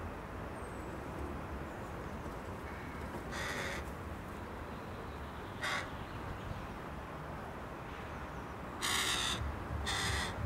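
Crow cawing four times: one caw about a third of the way in, a short one near the middle, then two in quick succession near the end.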